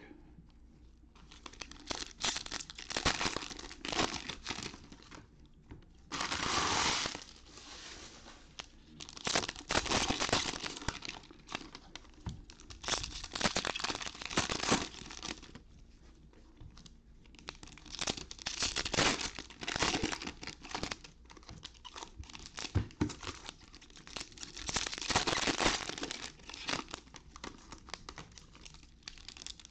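2021 Panini Score football card pack wrappers being torn open and crinkled by hand, in repeated bursts of crackling every second or two with short quiet gaps.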